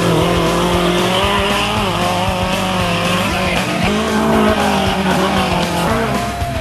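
Trophy truck engine running hard, its pitch wavering up and down as the throttle is worked, with rock music underneath.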